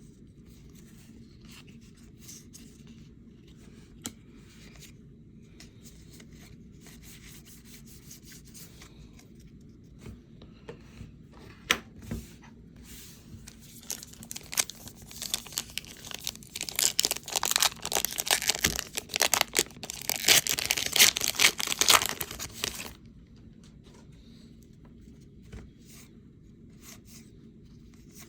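Wrapper of a pack of baseball cards being torn open and crinkled: faint handling rustles and a few clicks at first, then several seconds of loud tearing and crinkling past the middle.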